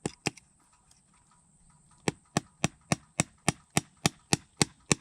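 Hammer driving a nail into a wooden fence post: a couple of knocks right at the start, then from about two seconds in a steady run of sharp blows, about three and a half a second.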